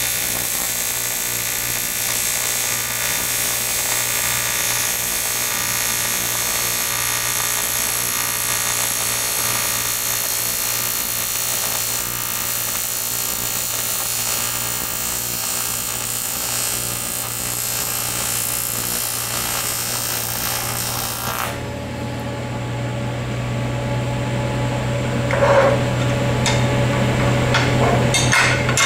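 AC TIG welding arc on aluminum, a steady dense buzz that cuts off suddenly about three-quarters of the way through as the weld is stopped. After it a lower steady hum remains, with a few clinks of the aluminum piece being handled near the end.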